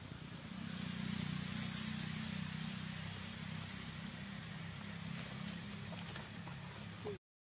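A motor vehicle engine running with a steady low hum under a hiss. It grows louder about a second in, then slowly eases off. The sound drops out completely for a moment near the end.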